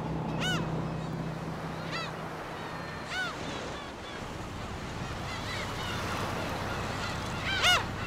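Black-tailed gulls calling at their nesting colony: separate cat-like mewing calls every second or two, each rising then falling, the loudest near the end, over a steady background hiss.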